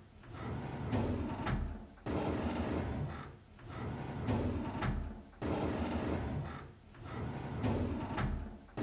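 A drawer sliding open, over and over. Each slide lasts about one and a half seconds, with brief gaps between them; some start abruptly and others build up gradually.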